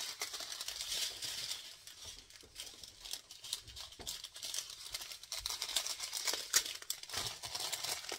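Plastic packets of diamond-painting drills crinkling and rustling as they are handled, with many small crackles and clicks.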